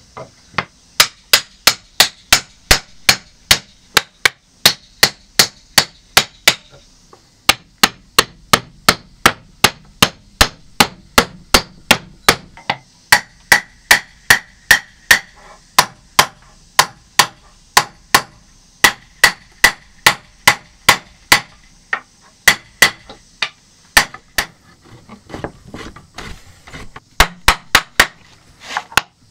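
A hammer striking wood in a long, steady run of sharp blows, about three a second. There is a short break about seven seconds in, then softer, scattered taps near the end before a quick final flurry.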